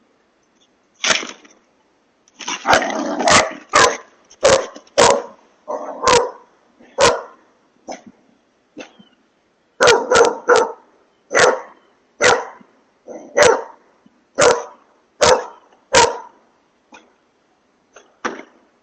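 Dog barking over and over, about one bark a second, with a few fainter barks around the middle and near the end.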